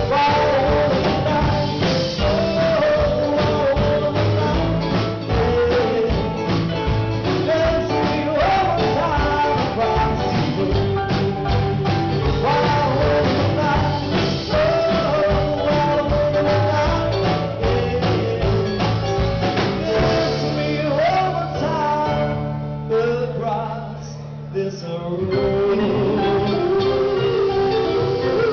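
Live rock band with a male singer: strummed acoustic guitar, electric guitars, keyboard and drums. About 22 seconds in the drums drop out and the music goes quieter for a few seconds before the full band comes back in.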